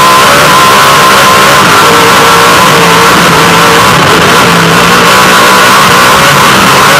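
Off-road race truck's engine running hard at speed, a dense roar with wind and gravel noise that overloads the onboard camera's microphone. Its pitch wavers as the revs change.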